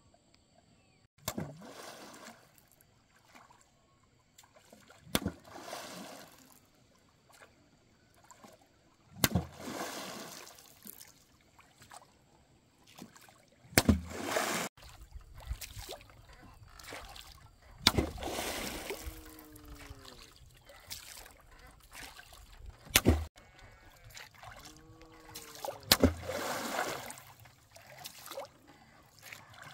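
A long pole slapping down hard on the lake surface, about eight strokes spaced roughly four seconds apart. Each sharp smack is followed by a second or two of splashing and sloshing water.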